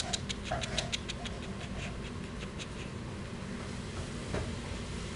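A puppy mouthing and chewing at a person's hand, making a quick run of small clicks for the first couple of seconds that then fades.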